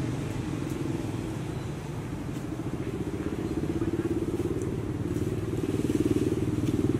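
A small engine running steadily close by, like a motorbike idling, getting a little louder near the end.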